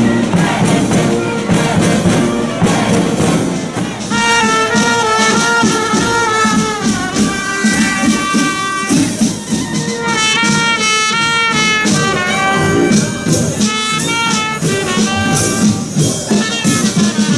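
Loud music with brass instruments playing a melody over dense percussion; the melody comes in clearly about four seconds in.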